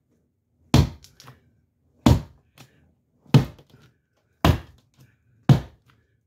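Five hard thuds of a fist wearing 3D-printed plastic knuckles punching into sheetrock, about a second apart, each blow breaking further into the wall.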